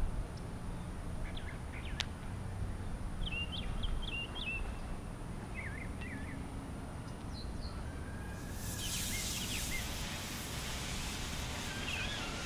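Small birds chirp now and then over a low outdoor rumble. About two-thirds of the way in, a steady hiss starts as a punctured three-cell DJI Phantom 1 LiPo battery pack vents thick smoke in thermal runaway.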